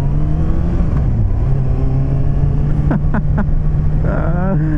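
Kawasaki ZX-6R 636's inline-four engine running in first gear on the move, its note steady with a short dip about a second in. It climbs near the end as the throttle opens.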